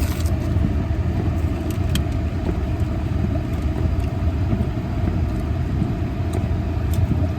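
Steady low rumble and blowing inside a car's cabin with the heater fan running, with a couple of faint clicks.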